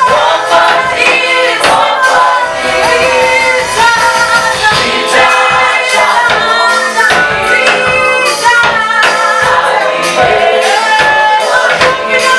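A choir singing a gospel praise song in several voices, with steady percussion keeping the beat.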